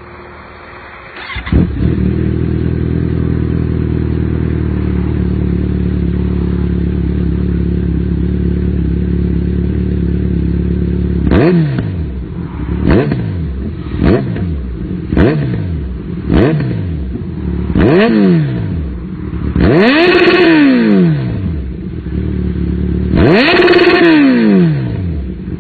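Kawasaki Z900's inline-four engine starting about a second and a half in and settling into a steady idle through its exhaust. It is then blipped six times in quick succession, each rev rising and falling back to idle, followed by two longer, louder revs near the end.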